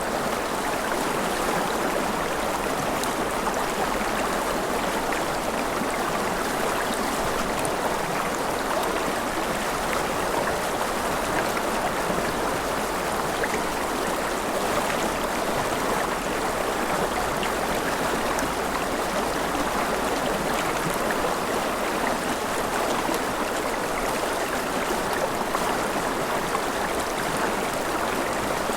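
River water flowing steadily over stones, a continuous even rushing with small splashes and trickles through it.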